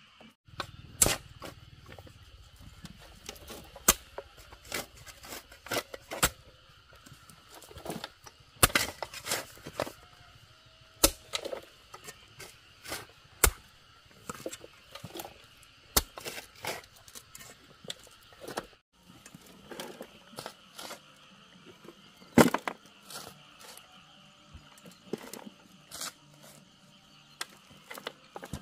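Sharp knocks and taps at irregular intervals, a few every couple of seconds, the loudest about 22 seconds in, over a faint steady high hum.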